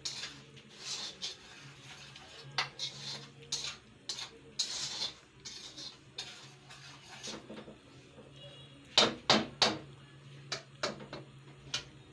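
A metal spoon scraping and stirring dry semolina in a metal kadhai, with a cluster of sharp clinks of spoon on pan about nine seconds in, over a faint steady hum.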